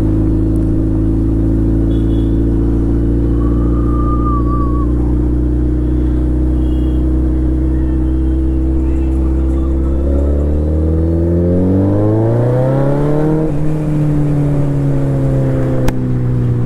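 Suzuki Hayabusa's inline-four engine under way: a steady cruising note for about ten seconds, then the revs climb for about three seconds, drop sharply on a gear change and ease slowly down.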